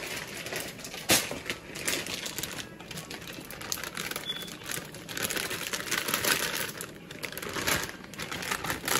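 Plastic packaging crinkling and rustling as it is handled, with a sharper click about a second in, while broccoli is being added to a pot of boiling water.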